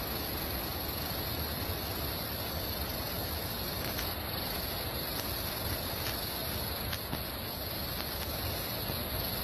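Steady rushing noise with a few faint ticks.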